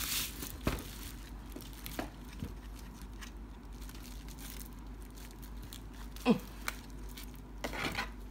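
A few faint clicks and knocks of small plastic parts being handled as an ABS front sight is worked into its slot on a Roni Gen2 conversion kit; the sight is not lining up with its slot.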